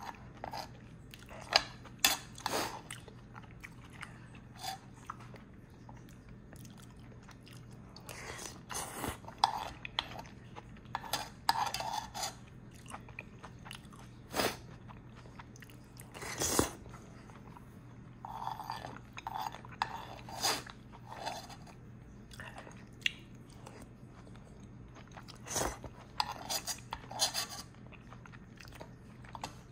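A person eating up close: irregular chewing and biting, with sharp mouth clicks scattered through.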